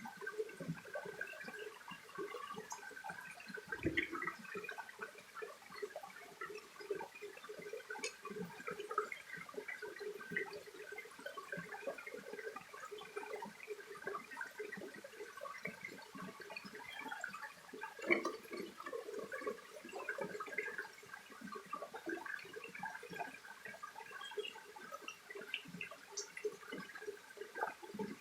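Shallow mountain stream babbling and gurgling steadily over stones, with one soft knock about four seconds in.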